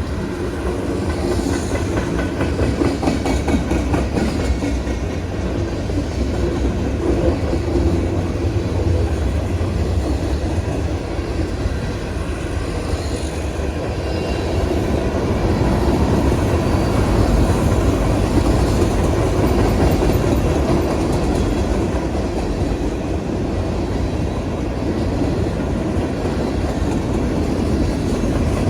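Freight train cars rolling past at close range, a steady rumble with the wheels clacking rhythmically over the rail joints.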